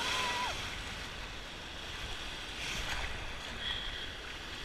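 Choppy lake waves splashing and washing in the shallows, with wind rumbling on the microphone.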